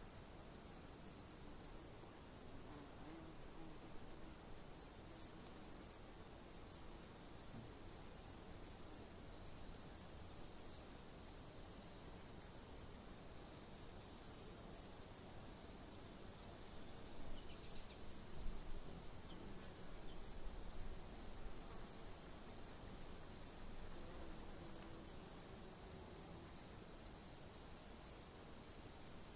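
Night insect chorus: crickets chirping in a steady rhythm of several short chirps a second, over a continuous high-pitched trill.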